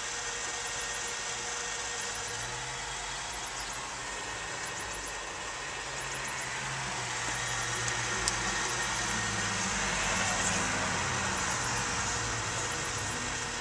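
Steady machine hum and hiss with a thin steady whine. A low hum grows louder and rises in pitch through the middle, then eases near the end, and there is a single click about eight seconds in.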